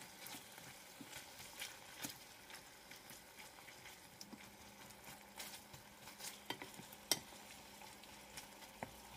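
Pork belly pieces sizzling faintly in a thick caramel sauce in a stainless steel pan while a wooden spatula stirs and scrapes them, with scattered small pops and clicks, one sharper about seven seconds in.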